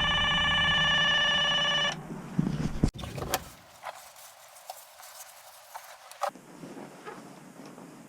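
An electronic ringing tone, steady and held for about two seconds, then faint scattered clicks and taps.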